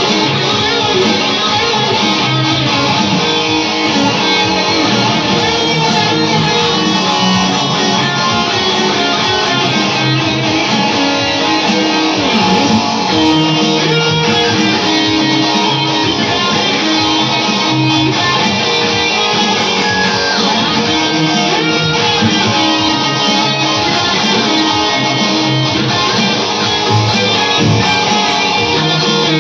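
Rock piece played on a Squier Stratocaster-style electric guitar through a Marshall JVM410H amplifier, continuous and steady in loudness.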